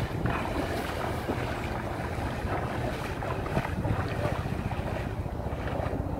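Wind buffeting the microphone in a steady rumble, with water sloshing and splashing around a person's legs as they wade through thigh-deep water.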